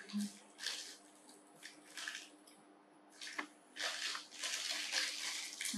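Plastic snack packet crinkling and rustling as it is handled, in short scattered bursts that come thicker and louder over the last two and a half seconds.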